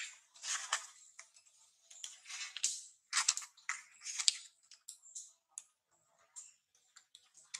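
Irregular clicking and crinkling of thin plastic as an infant macaque mouths and chews a small plastic cup, loudest around the middle, with gaps of near quiet in between.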